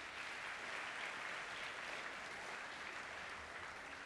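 Audience applauding, a steady patter of many hands clapping that eases off slightly near the end.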